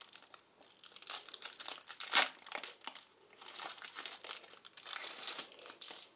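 A foil Match Attax trading card packet being torn open and crinkled by hand, in irregular crackles that are loudest about two seconds in.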